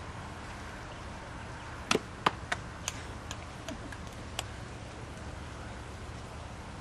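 A short run of about eight sharp plastic clicks and knocks from white PVC irrigation pipe and its tee fittings being handled, the first two the loudest, spaced unevenly over two or three seconds, over a low steady background.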